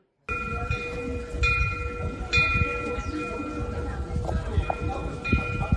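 Bronze temple eave bell (pungyeong) swinging in the wind, its clapper striking it about five times so that a clear, lingering metallic tone keeps ringing, with a low rumbling noise underneath.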